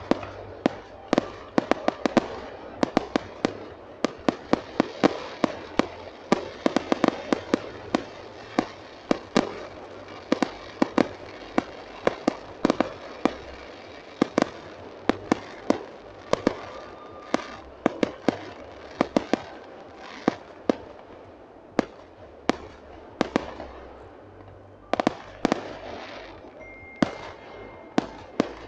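Aerial fireworks display: shells bursting overhead in a rapid, irregular series of sharp bangs, often two or three a second.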